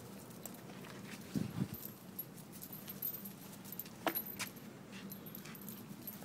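Small metal leash and harness hardware on a Yorkie puppy jingling and clinking lightly in short scattered bursts as the puppy moves on its leash, with a couple of soft thumps about a second and a half in.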